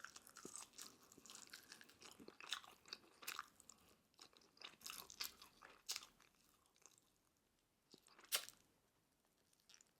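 Faint chewing of crispy Korean fried chicken, with scattered crisp crunches now and then; the loudest comes about eight seconds in.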